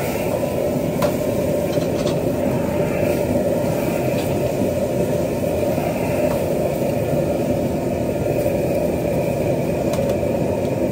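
A high-output wok burner running with a steady roar under a wok being stir-fried, with a few sharp metallic clinks of the ladle against the wok.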